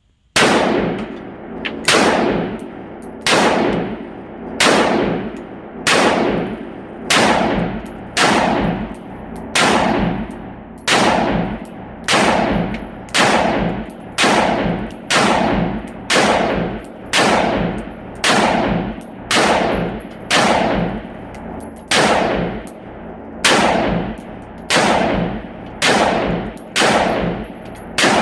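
AR-15 semi-automatic rifle fired shot after shot at about one shot a second, each report sharp and trailing off in an echo. There are about thirty shots.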